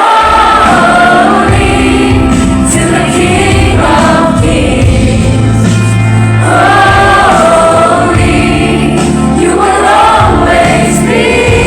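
A choir singing a praise song over a steady bass accompaniment, with long held notes.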